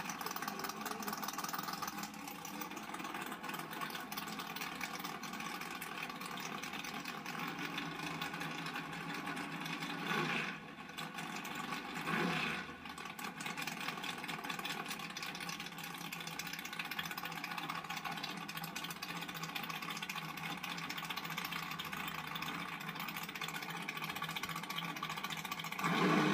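Rear-engine dragster's engine idling, with two brief swells about ten and twelve seconds in, heard thin through a camcorder's small playback speaker.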